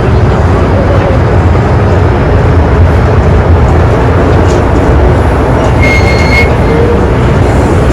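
MTR M-train electric multiple unit running at speed, heard from inside the car as a loud, steady rumble of wheels on rails. A brief high tone sounds about six seconds in.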